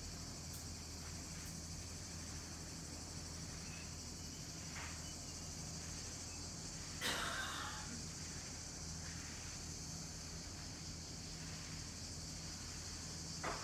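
Steady high-pitched chorus of cicadas buzzing without a break, over a faint low hum. A short knock about halfway through and another near the end.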